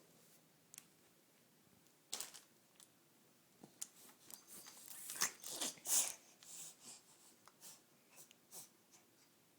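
Scattered short rustling and scuffing noises a second or two apart, loudest around the middle, of a baby moving about and handling things while standing at play.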